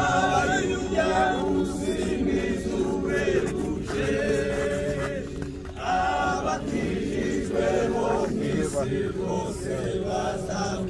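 A large group of people singing together without instruments, many voices holding long notes in phrases.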